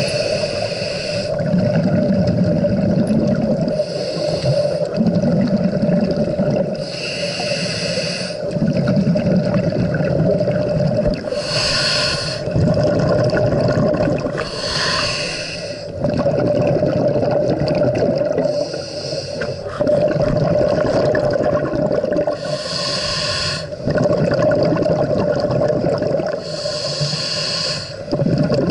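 Scuba diver breathing through a regulator underwater: a short hiss on each inhalation alternating with a low bubbling rush on each exhalation, about once every four seconds, over a steady hum.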